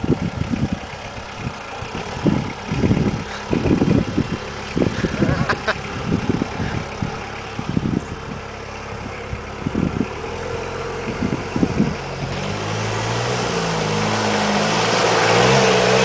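Auverland 4x4's engine running as the vehicle drives down into and through a muddy, water-filled ditch, with irregular low thumps through the first part. In the last few seconds the engine works harder, its note wavering and getting steadily louder as the vehicle comes close.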